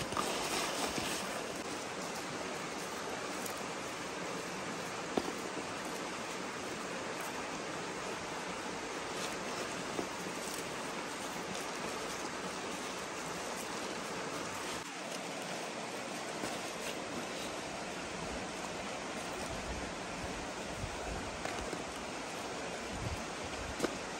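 Steady hiss of outdoor background noise, with a few faint clicks as hands rub a salted fish in a plastic basin.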